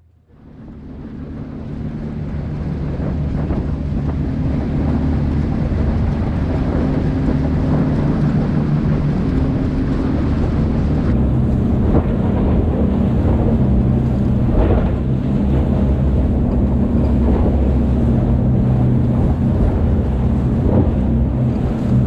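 Fishing boat's engine running under way, with wind on the microphone. The sound swells over the first few seconds, then holds steady.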